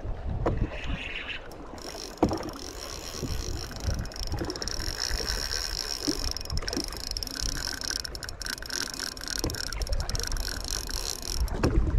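A fishing reel ticking rapidly under the pull of a hooked fish, with wind buffeting the microphone.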